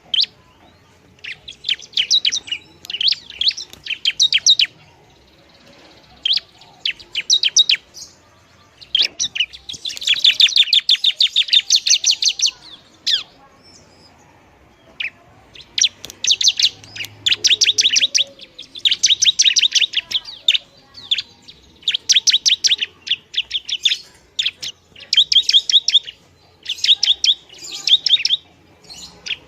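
Ciblek (a prinia) singing in loud, rapid bursts of sharp, ticking high notes, each burst a second or two long and separated by short pauses, with one longer, denser run about a third of the way in.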